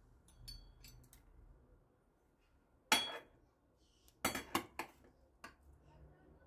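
Perforated stainless-steel skimmer clinking and scraping against a glass baking dish as it slides under a portion of baked stuffed cabbage: a few faint clicks, one sharp clink about three seconds in, then a quick run of clinks a second later and one more after.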